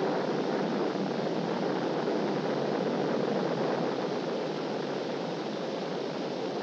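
Saturn V S-IC first stage's five F-1 rocket engines firing in a static test: a steady, dense rushing noise that starts abruptly and holds with little change.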